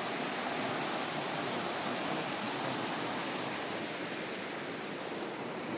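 Steady rush of a wide river running over rocky shallows and riffles.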